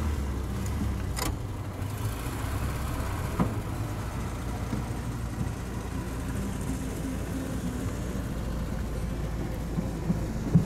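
Vintage car engine running steadily with a low rumble, with a single sharp click about a second in.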